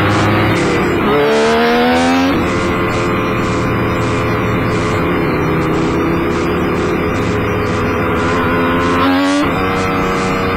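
Kawasaki KH500 two-stroke triple running hard. The revs climb sharply about a second in and again near the end, each time falling back abruptly.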